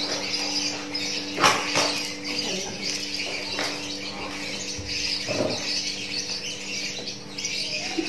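Brown paper and cardboard packaging rustling and crinkling as it is unwrapped by hand, with a few sharper crackles, over a steady low hum.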